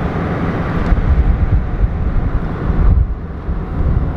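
Wind buffeting the microphone in gusts, a loud uneven low rumble with some hiss, picked up through a pickup truck's open window.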